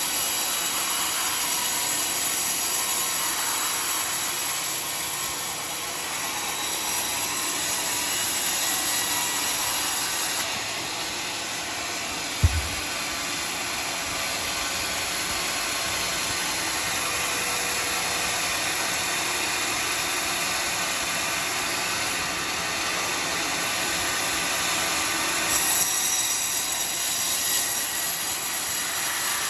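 Homemade bandsaw mill cutting through a teak log, a steady even running noise, with a single low thump about halfway through.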